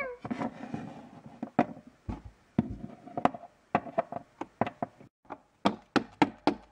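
Plastic Littlest Pet Shop figurine tapped and hopped along a tabletop: a series of light knocks, sparse at first and coming several a second near the end.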